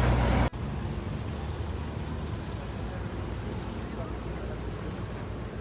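Ferry shuttle boat's engine running as a steady low rumble. About half a second in, the loud rumble cuts off abruptly and a quieter steady rumble follows.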